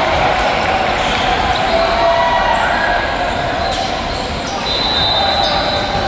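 Steady crowd chatter in a large indoor hall during a game, with several indistinct voices at once and a few short high squeaks, the clearest about five seconds in.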